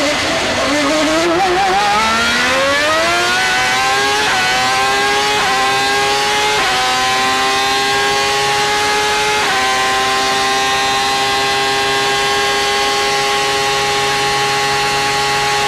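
Ferrari V12 Formula 1 engine at full throttle, heard from the onboard camera. It revs up out of a corner, then pulls through four quick upshifts, each a short dip in pitch. For the last several seconds it holds steady near the top of its revs.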